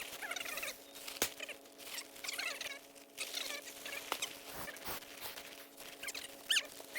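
Rustling and crinkling of tent fabric being handled and set up, with a few sharp clicks and knocks, over a faint steady hum.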